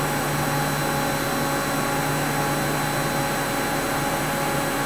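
Steady machine hum and whir, a few constant tones over an even hiss, from running shop machinery such as a powered-up CNC lathe.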